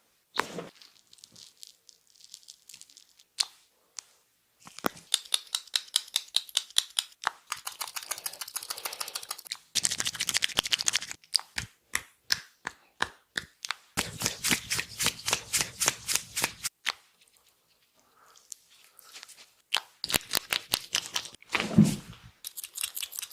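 Head massage by hand: runs of quick, rhythmic slaps and taps on the head, about six a second, broken by short pauses, with one louder sharp sound near the end.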